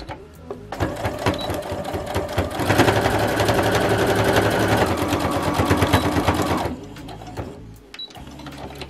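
Domestic electric sewing machine stitching a straight seam through layered cotton fabric. It starts slowly about a second in, runs fast for about four seconds, then stops suddenly.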